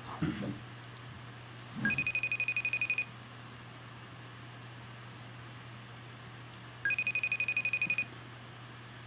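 Incoming video chat ringtone on a Mac (iChat), a rapid trilling ring sounded twice, each time for about a second, over a steady low hum.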